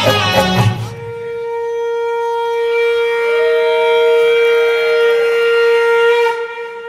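Raas dance music: a burst of full folk-style music, then one long held note on a wind-like instrument, with a second, higher note gliding in and falling away in the middle. The held note stops shortly before the end, just before the full music comes back.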